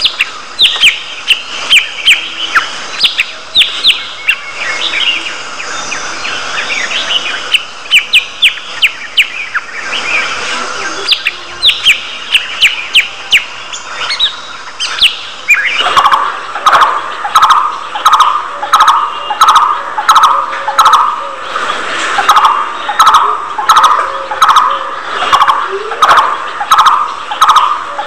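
Budgerigars chirping in a nest box: quick, high, repeated chirps for the first half, then, about halfway through, a lower call that repeats steadily about twice a second.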